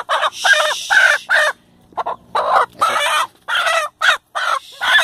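Chicken squawking in alarm, a rapid series of loud, short cries about three a second, as a dog's mouth is on it.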